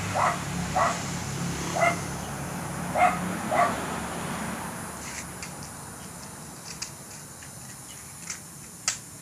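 A dog barking about five times in the first four seconds, the loudest a little past three seconds in. A few faint sharp clicks follow in the second half.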